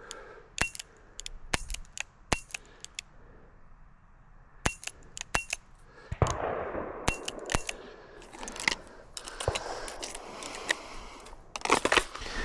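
An irregular series of sharp cracks and clicks, about twenty of them, some close together, with a short rustling hiss about six seconds in.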